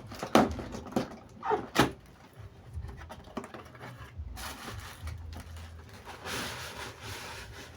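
Cardboard box and packaging being opened and handled: a few sharp knocks in the first two seconds, then a longer stretch of rustling and rubbing.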